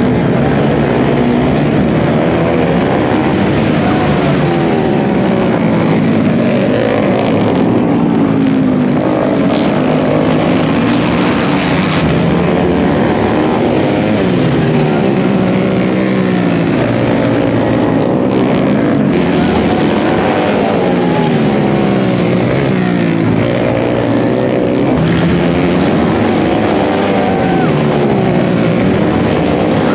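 A pack of flat track racing motorcycles on a dirt oval, several engines at once revving up and falling back again and again as the bikes slide through the turns and power down the straights.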